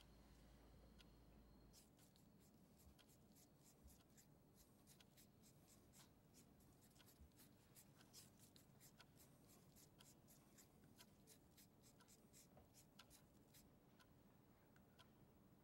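Near silence: quiet room tone with many faint, irregular small ticks and clicks. A faint low hum cuts off about two seconds in.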